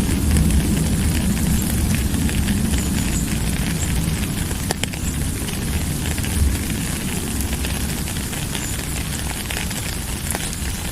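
Steady rain falling, an even hiss over a deep low rumble, with a few sharp drop clicks standing out.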